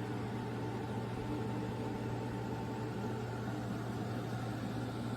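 A steady low mechanical hum over an even background noise.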